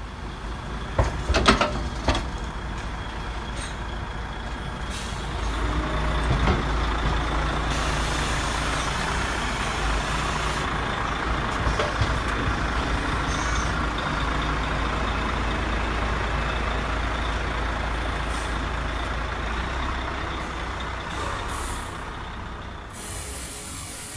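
Radio-controlled model tow truck unloading: a few clicks, then a steady mechanical running sound that grows louder about five seconds in and eases off near the end.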